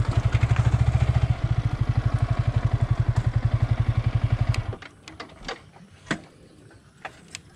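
Yamaha R15 V3's single-cylinder 155 cc engine running at low revs with an even, rapid pulsing beat as the bike rolls to a stop, then switched off, cutting out abruptly a little under five seconds in. A few faint clicks and knocks follow.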